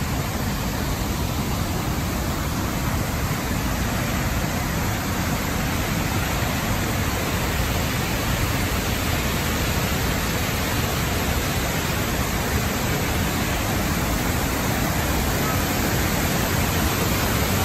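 Wallace Falls in heavy flow: the steady rushing noise of a large waterfall and its cascade.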